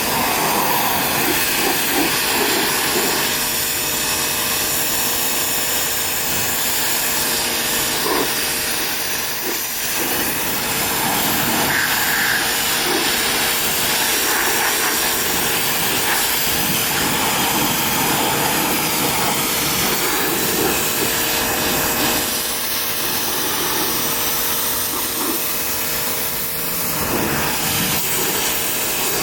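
Giraffe Tools Pressure Washer Plus running and spraying: a steady hiss from the water jet over the even hum of its electric motor and pump.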